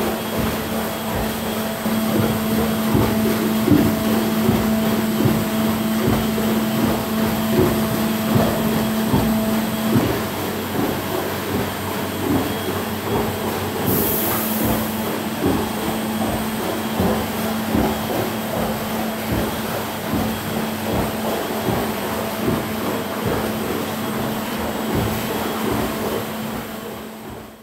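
Equine water treadmill running with a horse walking on it: a steady machine hum and rumble over water churning and splashing around the horse's legs. The hum drops away about ten seconds in, while the churning goes on.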